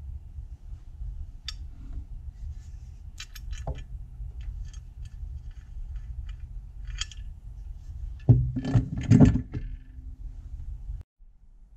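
Rusty cast-iron hand-cranked meat grinder being handled and turned over on a wooden bench: scattered light metallic clicks and clinks, then a loud cluster of knocks and thumps about eight to nine seconds in as it is shifted on the bench.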